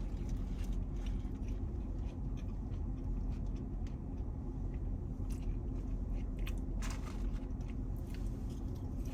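A person chewing and biting fast food (burger and fries) close to the microphone, with scattered mouth clicks and a few sharper crunches, over a steady low hum.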